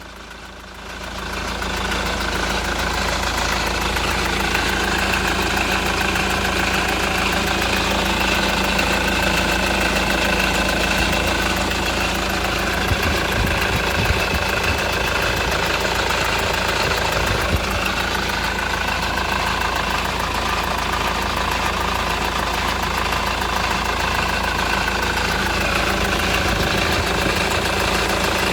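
Honda Accord 2.2 i-CTDi four-cylinder turbodiesel engine idling steadily.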